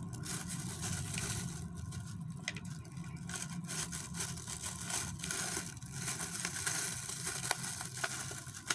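Clear plastic bag crinkling and rustling as it is handled and pulled over a potted stem cutting, with many small crackles throughout.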